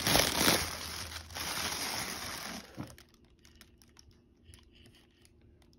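Thin clear plastic wrapping crinkling and rustling as a handbag is pulled out of it, loudest in the first second or so and stopping about three seconds in. After that only faint light clicks of handling.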